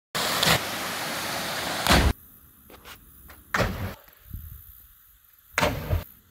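A small waterfall rushing loudly, ended after about two seconds by a heavy splash as a jumper drops into its pool. Then quieter open-air sound with a few short thumps, loudest near the end.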